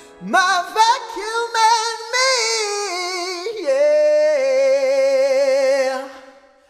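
A high solo voice sings drawn-out notes with strong vibrato. It scoops up into the first note and ends on a long wavering note that fades away near the end.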